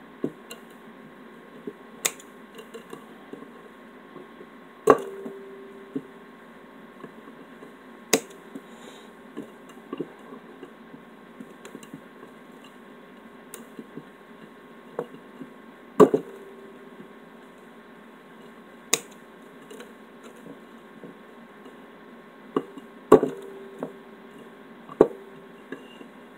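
Regular scissors snipping lead-free solder wire into short pieces to fill a lug terminal's cup: a sharp snip every few seconds, some followed by a short ringing tone.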